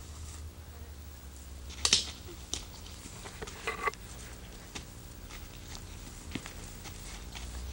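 A child's bat striking a ball off a batting tee: one sharp crack about two seconds in, followed by a few fainter clicks, over a steady low hum.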